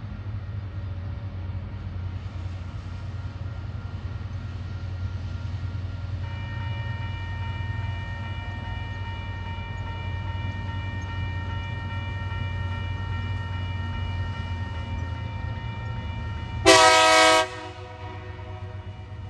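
Steady low rumble of a diesel freight locomotive approaching. From about six seconds in, a level crossing warning bell starts ringing steadily. Near the end, the locomotive gives one short, loud horn blast.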